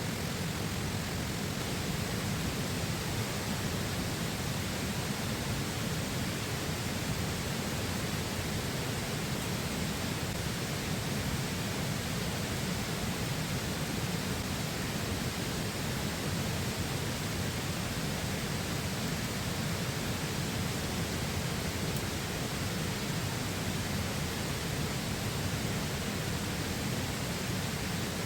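Flowing river water making a steady, unbroken rushing noise.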